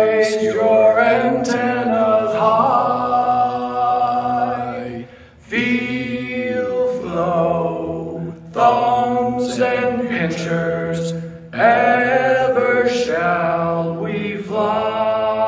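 A cappella male singing, one man's voice layered into several harmony parts, in long held phrases of a slow sea-shanty chorus: "hoist your antennas high… feel flow, thumbs and pinchers… ever shall we fly."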